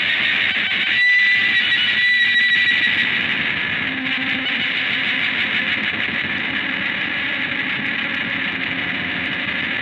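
Electric guitars droning through distortion and effects in a dense, sustained wall of noise-rock sound. About a second in, a high steady whine rises out of it and holds for about two seconds.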